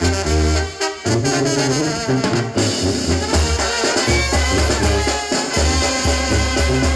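Live Mexican banda playing: trumpets and trombones carry the melody over a sousaphone bass line and drums.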